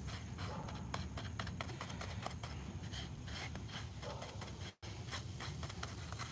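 Paintbrush working paint onto a rough concrete flower pot: a quick, irregular series of short scratchy brushing strokes over a steady low rumble, broken by a brief dropout about five seconds in.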